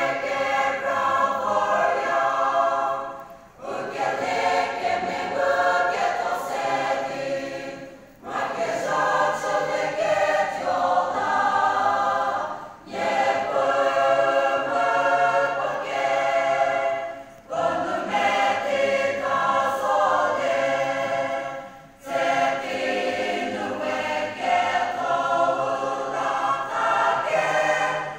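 Church choir singing a sacred song in long phrases of about four to five seconds, with a brief break for breath between them.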